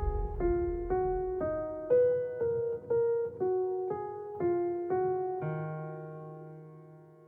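Background music: a solo keyboard playing a piano-like melody, about two notes a second, ending on a held chord that slowly fades out.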